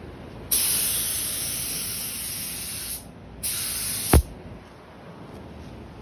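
Compressed-air paint spray gun firing two bursts of hissing spray, the first about two and a half seconds long, the second shorter and ending in a brief low thump that drops in pitch.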